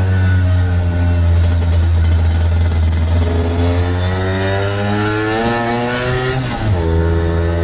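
1964 Lambretta Series 3 scooter's two-stroke single-cylinder engine under way, its pitch climbing steadily as it accelerates from about three seconds in, then dropping suddenly near the end as the throttle is eased back off.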